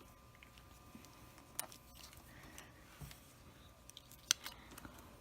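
Small plastic toy pieces being handled and pushed together: a few light clicks and taps, the loudest about four seconds in, over a faint steady hum.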